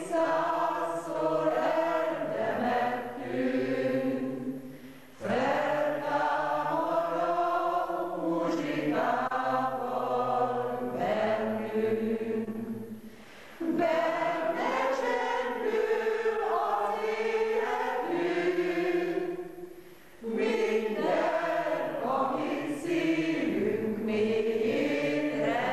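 Amateur song-circle choir singing a song in long sung phrases, with short pauses for breath about five, thirteen and twenty seconds in.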